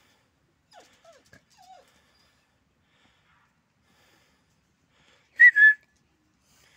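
Dog whining: a few soft, short falling whimpers about a second in, then a loud, high-pitched whine in two quick parts near the end.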